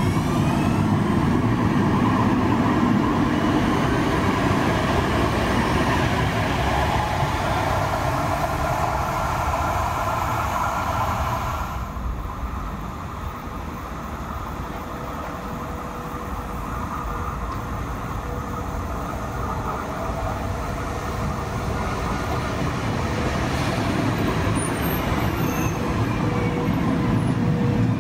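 Citadis Dualis tram-train running past with electric traction whine and wheel-on-rail rumble for the first twelve seconds. After an abrupt cut the sound drops away, then a second tram-train grows louder as it approaches, its motor whine falling as it slows into the platform.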